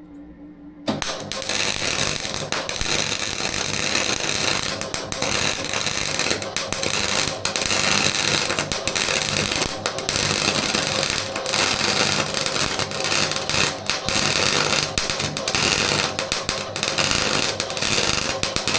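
Electric arc welding on a steel bash bar: a loud, dense, sputtering crackle of the arc that starts abruptly about a second in and carries on in one unbroken bead of about eighteen seconds.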